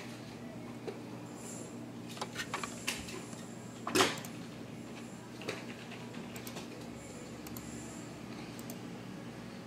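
A few light clicks and one sharper knock about four seconds in, from a tabletop mirror and a computer mouse handled at a desk, over a steady low hum.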